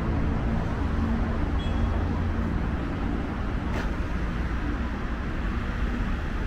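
Steady city road traffic: a continuous low rumble with engine hum from cars on the riverside road.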